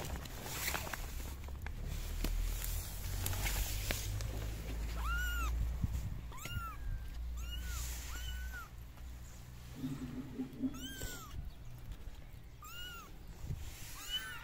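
Kitten mewing: a run of short, high-pitched mews, each rising then falling, starting about five seconds in. A low rumble underneath fades out around the middle.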